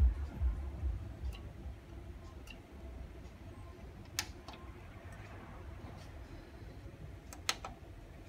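Electronic dance music's bass beat fading out within the first second as the MiniDisc deck's input level is turned down to nothing, leaving a low hum. Two sharp clicks of the Sony MDS-JE480 deck's front-panel buttons being pressed follow, about four seconds in and again near the end, the second the louder.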